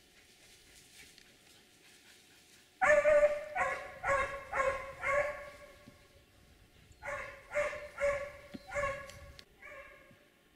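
Hunting dog barking in two runs: about five barks starting some three seconds in, a short pause, then about five more, the last ones fainter.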